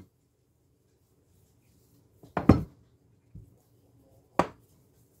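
Rolling pin rolling out samosa dough on a countertop: mostly quiet, with a few short knocks and clatters in the second half, the loudest about two and a half seconds in.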